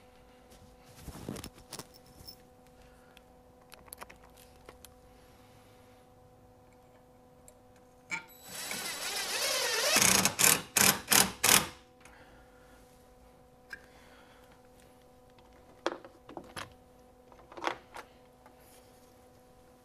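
Cordless drill driving a screw into a ceiling-mounted camera base: one run of the motor climbing in pitch, then four short trigger pulses as the screw seats. A few light knocks of handling come before and after.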